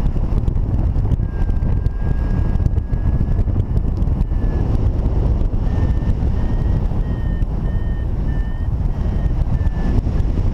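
Wind buffeting the microphone of a paraglider in flight, the loudest sound, with a paragliding variometer sounding over it: a steady tone for a couple of seconds, then, from about halfway through, short beeps about two a second, the vario's signal that the glider is climbing.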